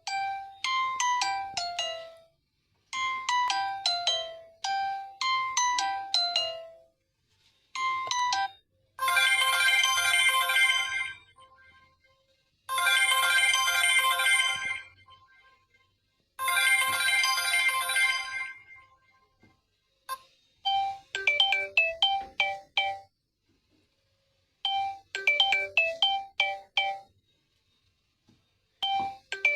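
Samsung Galaxy J5 Prime alarm tones previewed one after another, with short gaps between them. First comes a repeating phrase of falling notes, then three long bright chiming bursts, then a quick repeating pattern of short notes.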